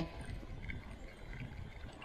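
Quiet ambience over open sea water: a low, steady wind rumble on the microphone with faint water sounds.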